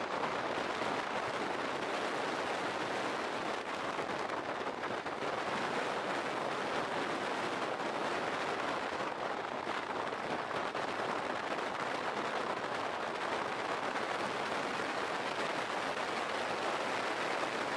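Longboard wheels rolling at speed down an asphalt road: a steady rushing noise of urethane wheels on tarmac that holds at one level throughout.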